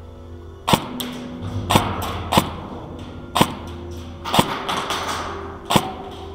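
Scattered airsoft gunfire: about seven sharp single cracks of shots and BBs striking cover, at uneven spacing of roughly one a second.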